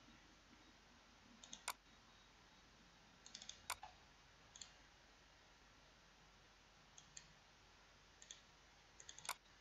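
Computer mouse button clicks, single and double, in small groups every second or two, over near silence.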